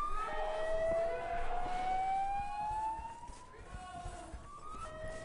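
Prison alarm siren sounding a slow rising wail. Its pitch climbs steadily for about four and a half seconds, then drops back low and starts climbing again, just after the start and again shortly before the end.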